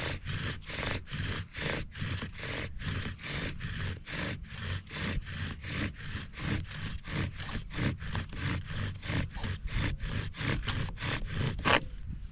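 Bow drill in use: the wooden spindle scraping and squeaking in the fireboard with each fast back-and-forth stroke of the bow, about three strokes a second, stopping near the end. The drilling is uneven, which he blames on the bearing block binding.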